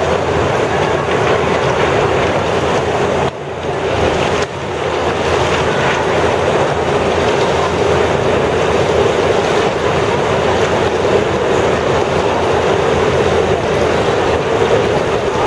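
Large fans blowing a steady, loud rush of air across an indoor pool to drive Optimist sailing dinghies, dipping briefly about three seconds in.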